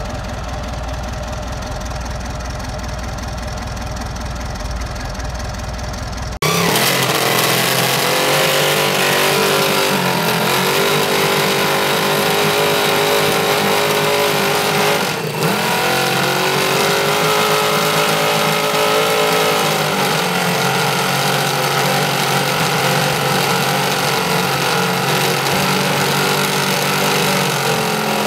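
A 1929 Henderson Excelsior Streamline's inline four-cylinder engine idling steadily. After a cut about six seconds in comes the 500cc water-cooled Moto Guzzi V8 racing engine, running louder, its revs rising and falling with throttle blips.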